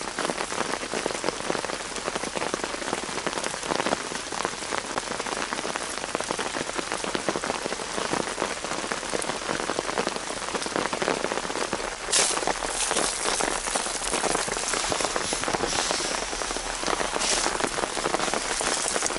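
Steady rain falling on forest leaves and ground, a dense patter. About twelve seconds in it turns louder and hissier, with rain striking the tarp overhead close by.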